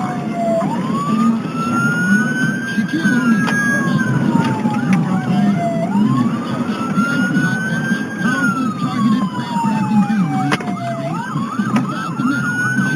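Police car siren on a slow wail, its pitch climbing for about two and a half seconds and then falling for about three, repeating over and over, with a faster warbling tone in between and steady low vehicle rumble underneath.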